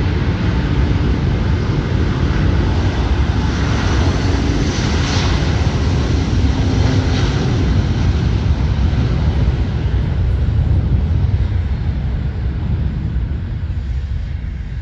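Airliner's jet engines roaring steadily as it passes close by, fading away near the end.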